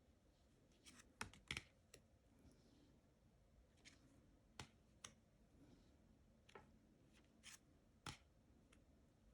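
Tarot cards being flipped and set down one by one, making faint, sharp clicks at irregular intervals, a few in quick succession about a second in and single ones later.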